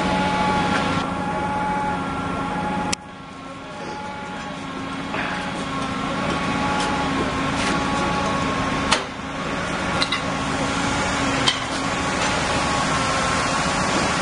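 Heavy truck diesel engine running steadily with a pitched hum. A handful of sharp metallic clicks and knocks are scattered through it. The sound drops abruptly about three seconds in, then builds back.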